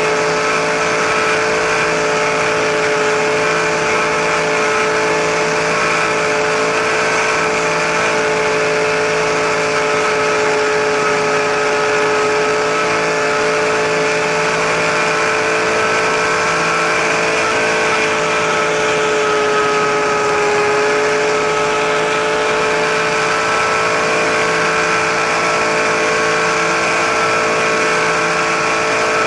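RC helicopter in flight heard from a camera mounted on it: a steady, high motor and rotor whine of nearly constant pitch over the rushing noise of the blades, dipping slightly in pitch about two-thirds of the way through.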